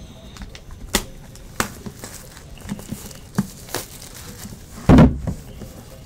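A cardboard trading-card box being handled and opened by hand: a few light taps and scrapes, then a louder thump about five seconds in.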